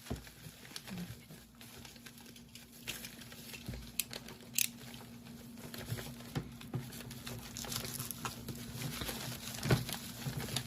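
Crinkling and rustling of delivery packaging being handled and torn open, with scattered small clicks and knocks. A faint steady hum runs underneath.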